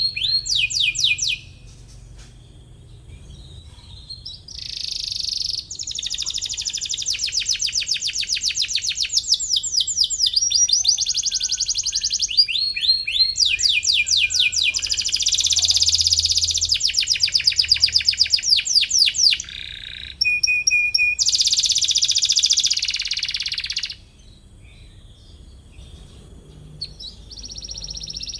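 Domestic canary singing: long phrases of fast, rolling trills and repeated chirps, broken by short pauses, with quieter gaps of a few seconds just after the start and near the end.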